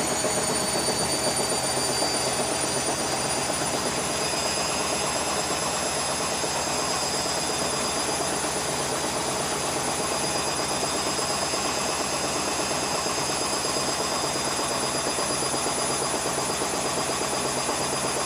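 Beko WM5101W washing machine spinning: a steady rushing drum noise with a high motor whine that rises slightly in pitch over the first few seconds, then holds steady as the drum reaches speed.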